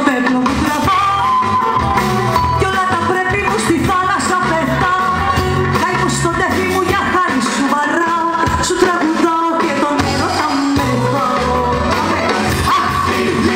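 A woman singing live into a microphone, backed by a small band of guitar, violin and hand drums with a steady beat.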